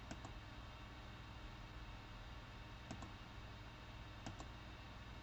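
Computer mouse button clicking: three quick double clicks spaced a second or more apart, over a faint steady hum.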